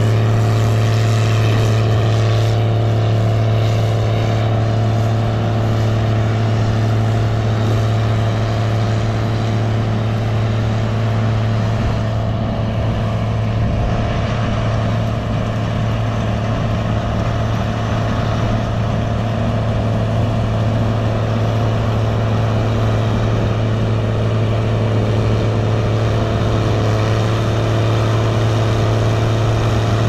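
A combine harvester's diesel engine running steadily while it cuts soybeans: a constant low hum with an even mechanical rush over it, unchanging in pitch.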